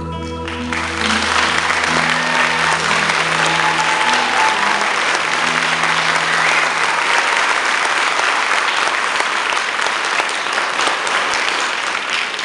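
Audience applauding, breaking out suddenly about a second in, over the last held notes of the music, which fade away about halfway through.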